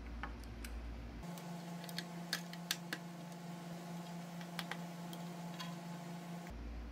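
Light, scattered clicks and ticks of a small hand screwdriver and screws working into the Snapmaker 2.0's base plate, the sharpest a little after two seconds in, over a steady low hum.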